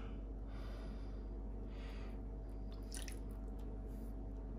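Steel knife blade stroked across a wet whetstone, most likely its 1000-grit side: faint, wet rasping strokes about once a second, over a steady low hum.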